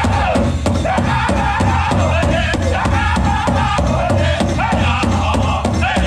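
Powwow drum group performing a chicken dance song: singers in high-pitched unison over a fast, steady beat on a big drum.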